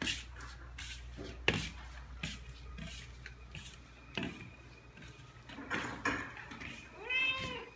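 Ragdoll cat meowing: one long meow near the end that rises and then falls in pitch. This is the cat's cry when its owner is about to go out. Several sharp clicks and knocks come before it, the loudest about a second and a half in.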